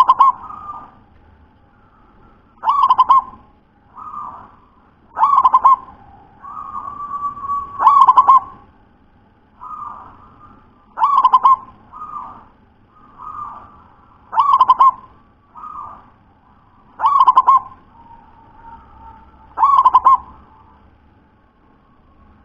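Zebra dove (perkutut) cooing repeatedly. Its song runs as rolling coos with a loud phrase about every three seconds and softer coos between, in the thick, deep voice the keeper calls 'super tebal'.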